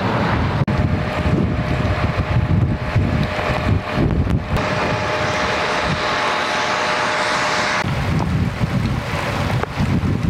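Storm wind gusting and buffeting the microphone with a heavy low rumble. For a few seconds in the middle it gives way to a steadier hiss of rain carrying a faint steady hum.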